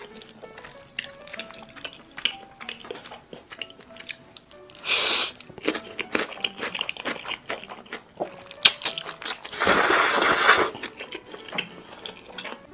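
Close-miked eating sounds: chewing and crunching with many small wet clicks, and two loud noodle slurps, a short one about five seconds in and a longer one around ten seconds in, over soft background music.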